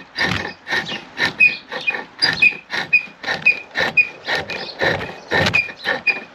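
Pole lathe turning a chestnut spindle, a chisel cutting the wood in a steady rhythm of about two strokes a second as the treadle drives it back and forth, with a short squeak on each stroke.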